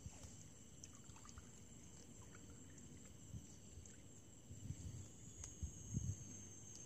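Faint outdoor swamp ambience: a steady high insect drone, with low water sloshing and soft knocks around a wading angler's legs and basket about four to six seconds in.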